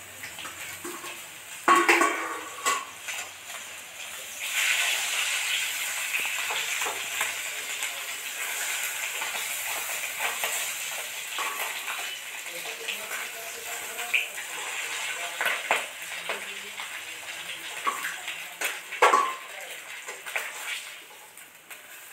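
Fish pieces sizzling as they fry in oil in a steel kadhai, with scattered clinks of metal utensils against the pan. A steel plate used as a lid clanks loudly about two seconds in and again near the end.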